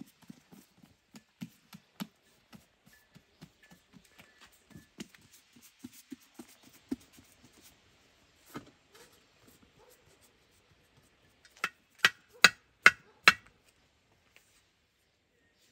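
Soft, repeated slaps and thuds of bread dough being worked and turned between the hands. Near the end come five quick, louder pats as the dough is pressed out on a flat iron griddle.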